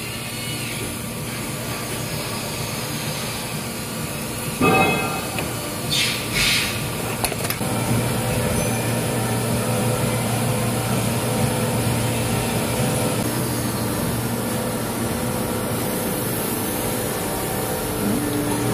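Steady low hum of factory machinery, growing somewhat louder about eight seconds in. A few short knocks and hisses stand out around five to seven seconds in.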